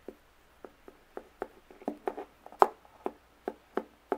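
Light, irregular taps and clicks of a small plastic pony figure being handled and set down on a tabletop, about fifteen in all, the loudest about two and a half seconds in.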